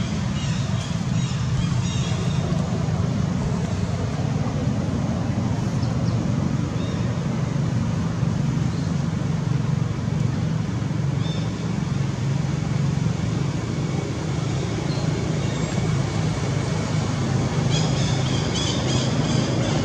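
Steady low background rumble with hiss, with a few short high chirps near the end.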